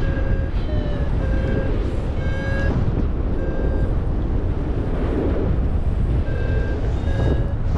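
Paragliding variometer beeping in short repeated tones, the climb tone that signals rising air, over loud wind rush on the microphone. The beeps pause for about three seconds in the middle and then start again.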